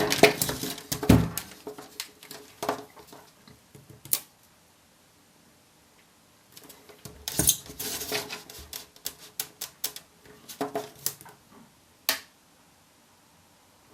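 Small clicks and taps of cylindrical 18650 lithium-ion cells and meter test probes being handled on a tabletop while the cells' voltages are checked. The clicks come in two clusters with a pause of about two seconds between them.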